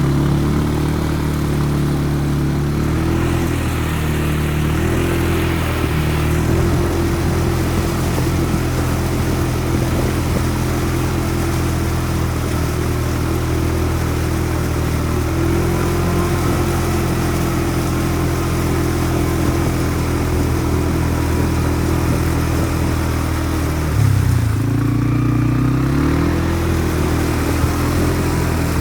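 CFMOTO buggy's engine running while it is driven, its revs shifting now and then. About three-quarters of the way through, the engine speed dips and then climbs again.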